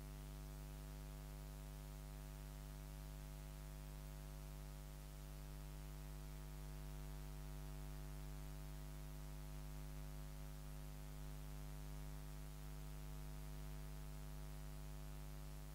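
Steady mains hum with faint hiss from a switched-off microphone. It is the sound of a dead mic channel, so none of the interview's voices come through.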